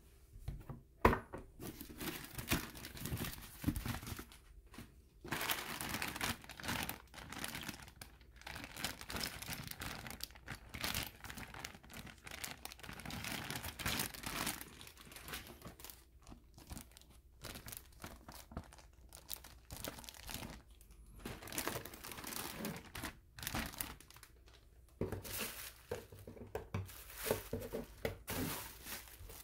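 Plastic parts bags and bubble wrap crinkling and rustling as they are handled and lifted out of a cardboard box, in irregular bursts, with a sharp knock about a second in.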